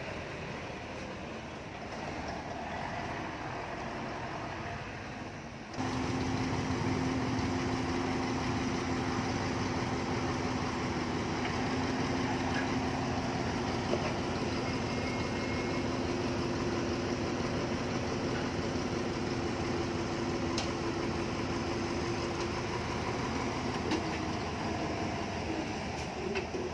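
Heavy construction machinery's diesel engine running steadily. About six seconds in, the sound cuts abruptly to a louder, steady engine drone that holds until near the end.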